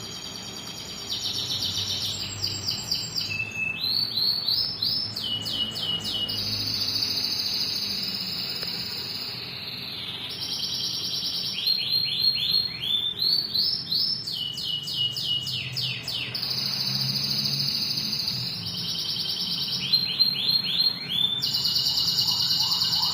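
A songbird singing loudly and continuously, alternating fast runs of quick falling high notes with held high trills.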